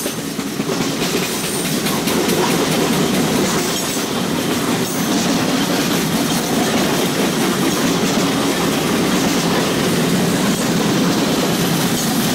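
Empty covered hopper cars of a freight train rolling past at about 27 mph: a steady rumble and clatter of steel wheels on the rail.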